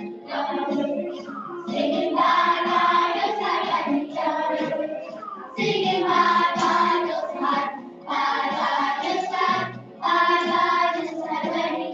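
A choir of children singing, in phrases of about two seconds with short breaks between them.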